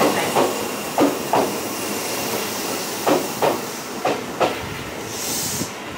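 Tobu 8000 series electric train moving out past the platform, its wheels clacking over rail joints in pairs, over a steady running noise. A short hiss comes near the end.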